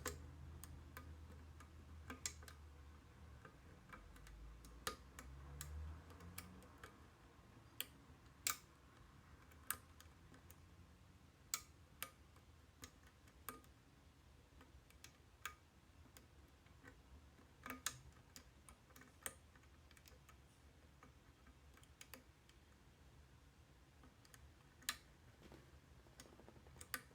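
Bent steel wire picking an Ilco cabinet wafer lock: faint, irregular metallic clicks and ticks, one every second or two, as the wafers are worked.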